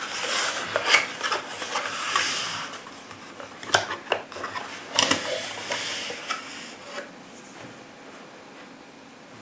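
Cardboard shotshell box being opened by hand: the flaps rustle and scrape, then a few sharp clicks and knocks as the 12-gauge shells inside are handled and one is pulled out. It grows quieter after about seven seconds.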